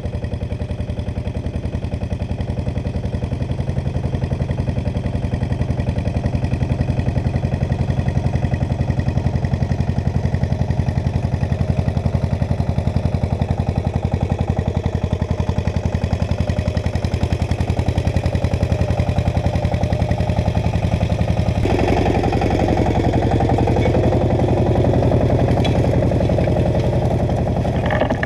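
Agria 8900 articulated tractor's Lombardini single-cylinder diesel running steadily with a fast, even beat while pulling a disc harrow, getting louder over the first few seconds as it approaches. About 22 seconds in the sound suddenly becomes closer and fuller.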